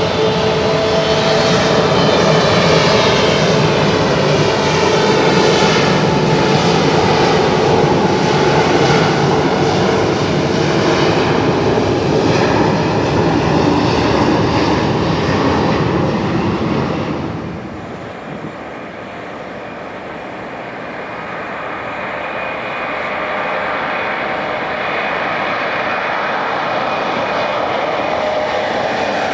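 Twin turbofan engines of a departing Embraer 175 jet airliner at take-off power, a loud steady jet rumble and whine with slowly sweeping tones as it climbs away. About two-thirds of the way in the level drops suddenly, then builds gently again.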